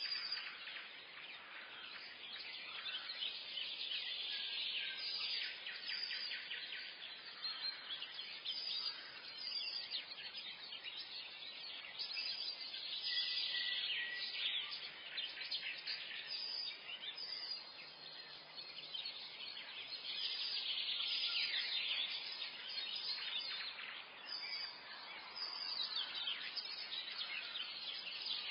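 Many small birds singing and chirping at once in a forest dawn chorus, a dense, continuous overlap of high chirps and trills.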